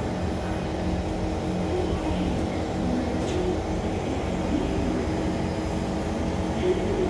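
SMRT C151 train stationary at a station platform with its doors open, its onboard equipment giving a steady hum of several tones over a low rumble.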